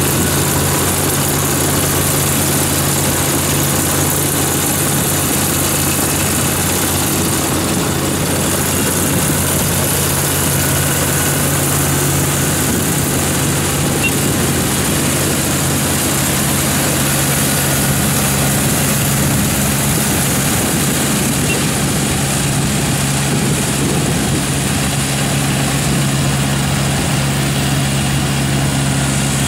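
Kubota ER447 combine harvester running steadily while cutting and threshing rice: a constant engine hum with a hiss of machinery over it.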